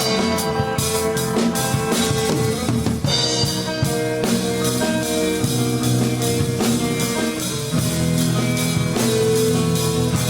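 A rock band plays an instrumental passage between sung verses, with a drum kit and guitars holding chords over a steady beat.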